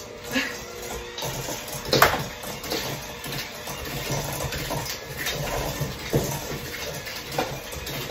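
An egg cracked with one sharp tap against the rim of a small bowl about two seconds in, among light kitchen clatter of bowls and utensils.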